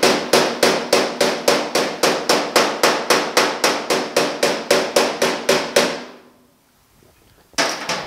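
Hammer tapping the edge of a steel patch panel down against a 1950 Chevy truck's inner door panel, closing up the seam for a tight fit before welding. Quick, even blows about four a second with a metallic ring, stopping about six seconds in, then two more quick blows near the end.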